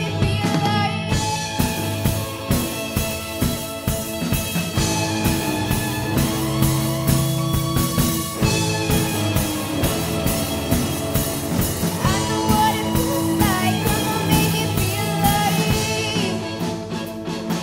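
Live rock band playing with a steady drum-kit beat, electric bass and electric guitars, with a singer's voice in places.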